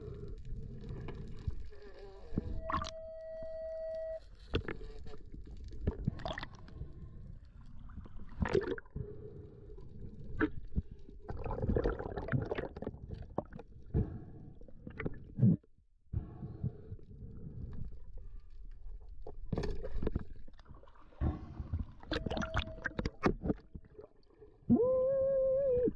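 Underwater sound picked up by a camera in its housing: a muffled low rumble of moving water with scattered clicks and knocks. A steady beep-like tone sounds twice, about three seconds in and again near the end, and a louder wavering tone starts just before the end.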